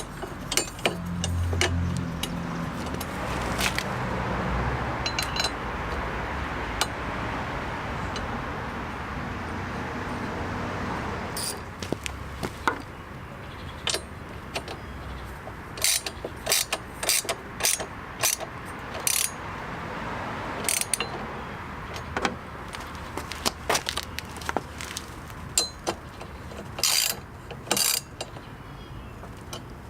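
Ratchet wrench working the 12 mm bolts that hold a motorcycle's engine guard: a steady rasp at first, then many sharp clicks, some in quick runs.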